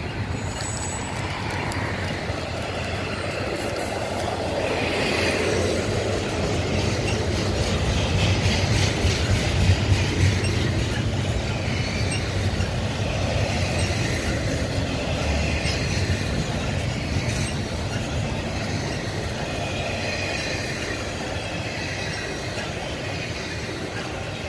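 Double-stack intermodal container cars rolling past on the rails: a steady rumble of wheels on track, with high wheel squeals coming and going.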